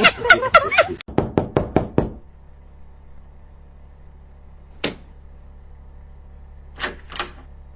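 Rapid knocking, about six knocks in a second, then a single knock a few seconds later and two more near the end.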